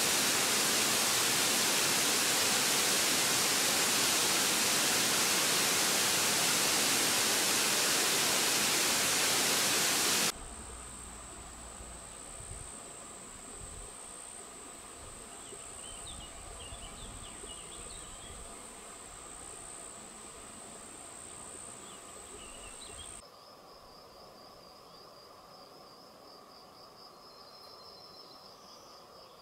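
Steady rushing of a waterfall for about ten seconds, which cuts off suddenly. A high, steady insect trill follows, with a few faint chirps. Near the end it switches to a softer, higher, pulsing insect trill.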